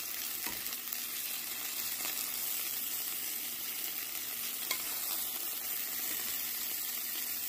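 Hot peanut oil sizzling steadily in a frying pan of browned quail, with a few faint clicks of metal tongs as the birds are moved.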